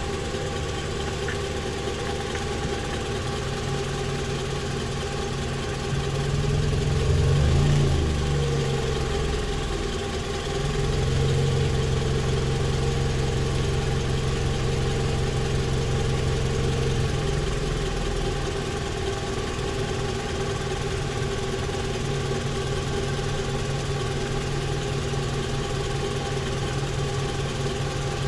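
Toyota Vanguard's 2AZ-FE 2.4-litre four-cylinder petrol engine idling steadily. Its note swells and shifts in pitch briefly about a quarter of the way in, then runs a step louder for several seconds in the middle before settling back.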